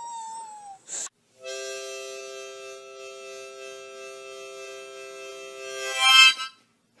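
A harmonica-like chord of several reedy notes held steady for about four and a half seconds, swelling louder just before it cuts off. Before it, a high drawn-out wailing tone fades out in the first second, followed by a click.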